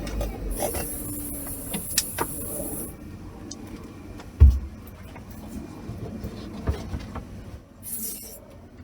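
Off-road vehicle running over rough, muddy ground, with scattered knocks and one loud thump about four and a half seconds in. A high hiss sounds during the first three seconds.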